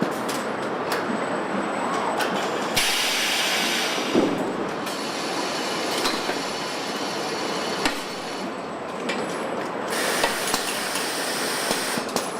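Car assembly line machinery running: a steady mechanical din with scattered clanks and clicks, and two bursts of hiss lasting about two seconds each, a few seconds in and near the end.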